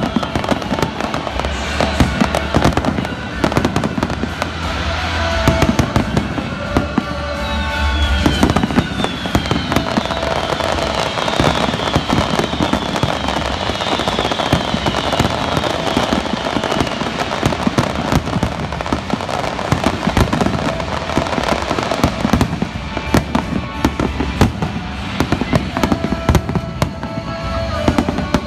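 Fireworks display: a dense, continuous barrage of aerial shell bursts, bangs and crackles in quick succession.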